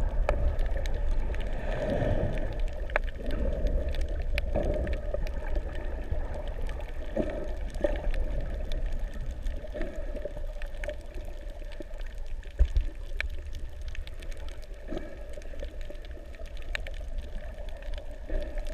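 Underwater sound picked up by a submerged camera over a shallow reef: a steady, muffled rumble of moving water with many scattered faint clicks and crackles.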